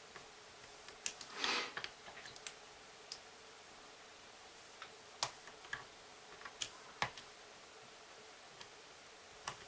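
Scattered small metallic clicks and ticks of a lock pick and tension wrench working the pin stack of a six-pin Master lockout-tagout padlock with security pins, during single-pin picking. A short scraping rustle comes about a second and a half in.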